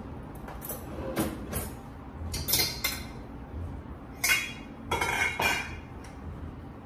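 Metal pot lid and stainless steel cooking pot clinking and clattering as the lid is handled over a pot of boiling potatoes being checked. There is a series of sharp metallic clinks, the loudest about two-thirds of the way through.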